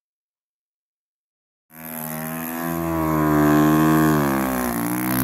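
Silence for the first couple of seconds, then a snow bike's engine running under throttle, its pitch rising, dipping and climbing again as the rider carves through deep powder.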